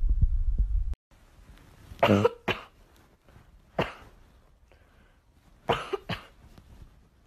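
A low rumbling stops abruptly about a second in. Then a Boston terrier gives five short, cough-like barks: a pair, a single, then another pair.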